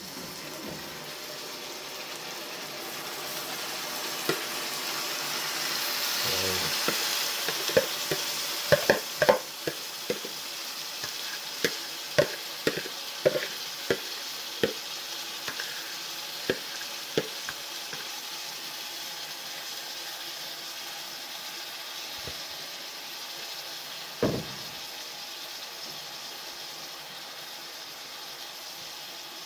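Chicken back and vegetables frying in a pot, the sizzle swelling about five seconds in. A cooking utensil knocks sharply against the pot a dozen or so times while stirring, with one more knock later on.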